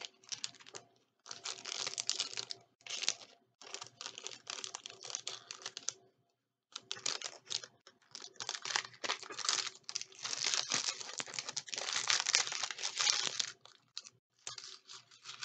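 Paper packaging rustling and crinkling as items are handled and unwrapped, in irregular crackly bursts with a short pause about six seconds in.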